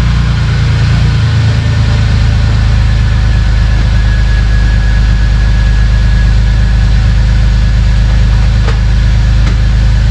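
BMW car engine running steadily at idle just after being started, after a long time sitting unused.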